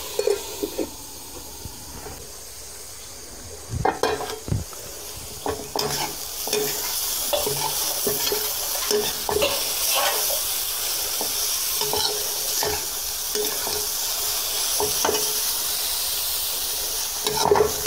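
Grated carrot sizzling in ghee in a steel wok. About four seconds in come a few metal clanks, and from then on a steel spatula scrapes and stirs through the carrot in repeated strokes over the continuing sizzle, as the carrot's own moisture cooks off.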